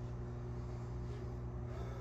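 Steady low hum with faint room noise; no distinct sound stands out.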